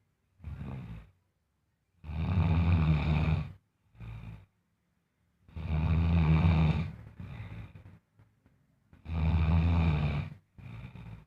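Loud snoring in a regular cycle: three long snores about three and a half seconds apart, each followed by a shorter, quieter breath out.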